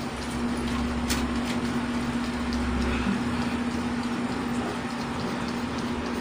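Steady machine hum with a constant low tone under an even hiss, with a deeper rumble for the first few seconds and a sharp click about a second in.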